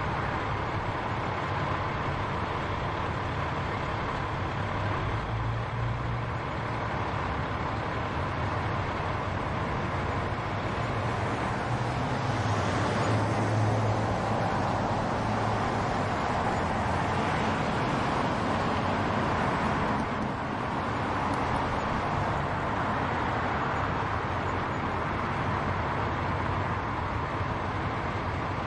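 Continuous road traffic noise: cars and heavier vehicles driving past, with a louder engine hum as vehicles pass close a few seconds in and again around the middle.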